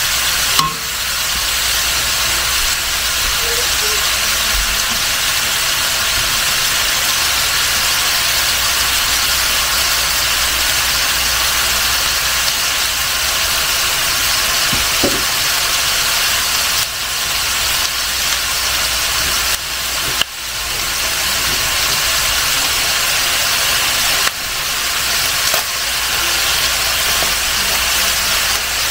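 Beef and onions sizzling as they brown in a stainless steel pan, a steady hiss over a low hum.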